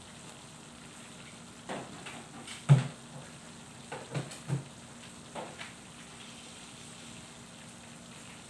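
Thick red sauce simmering in a metal wok: a steady faint sizzle with a cluster of short pops and plops as bubbles burst, the loudest about three seconds in.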